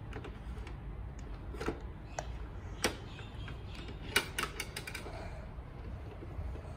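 Hard plastic clicks and clacks of a Bruder MAN TGS toy garbage truck's rear bin lifter and tailgate being worked by hand, with a few single clicks and then a quick run of clacks about four seconds in as the green bin is lifted.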